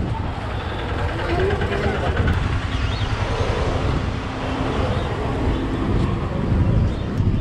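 Busy street ambience: road traffic running, with people's voices chattering in the background.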